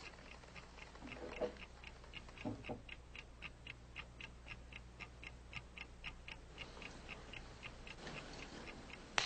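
Watch ticking steadily, about four quick ticks a second, with a few soft knocks in the first few seconds and one sharp click near the end.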